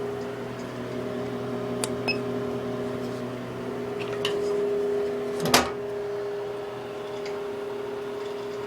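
US Stove Model 5660 pellet stove running, its blower motors humming steadily. There are a few light clicks about two seconds in and one sharp knock about five and a half seconds in.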